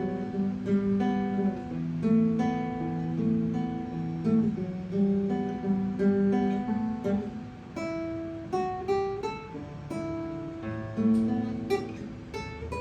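Music: a melodic sample of plucked, guitar-like notes and chords that ring on, with new notes starting several times a second.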